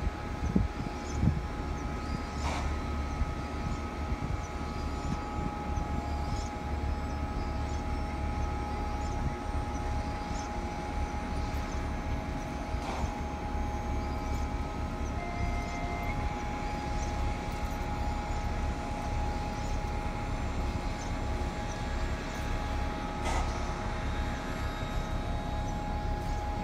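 Steady low mechanical drone with several constant tones, over an uneven low rumble, broken by three faint knocks about ten seconds apart.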